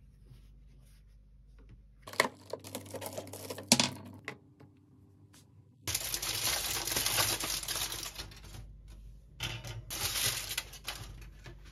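Aluminium foil crinkling and rustling as it is unwrapped by hand. The crinkling comes in loud spells about six seconds in and again near the end, with a few clicks and rustles about two seconds in.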